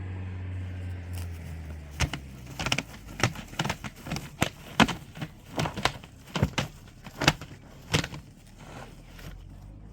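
A steady low motor hum that cuts off about two seconds in, followed by a string of irregular sharp knocks and clicks, roughly one or two a second.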